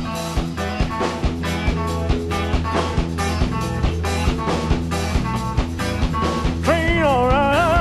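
Live rock-and-roll band playing: electric guitar, bass and drum kit keeping a steady beat. Near the end, a singer comes in on a long held, wavering note.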